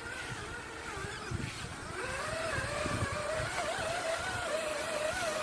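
Electric motor of a JLB Cheetah RC buggy whining as it drives, the pitch wavering up and down with the throttle and growing louder about two seconds in.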